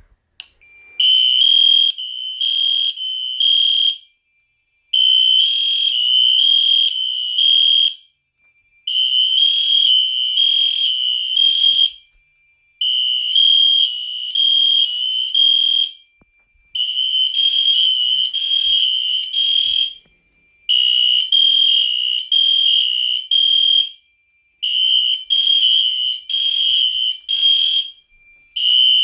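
Fire alarm horn strobes, an Edwards Genesis and a Wheelock NS, sounding together on a test. A loud, shrill horn tone comes in choppy blasts of about three seconds, each broken into quick pulses, with a short pause about every four seconds.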